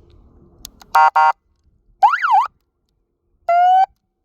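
Electronic siren speaker on a WIRED Cruiser e-bike stepping through its different tones: a double beep about a second in, then a quick up-and-down siren sweep, then a short rising tone near the end.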